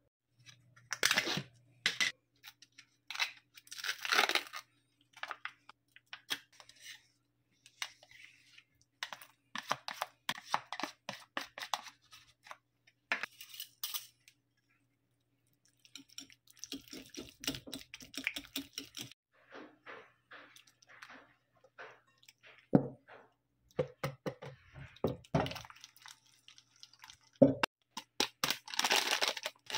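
Close-up kitchen handling sounds in short bursts: cream cheese being mashed and stirred with a wire whisk in a glass bowl, with scraping and light clinks of the metal whisk on the glass. Near the end there is a louder rustle from a plastic sachet of 3-in-1 coffee mix over the bowl.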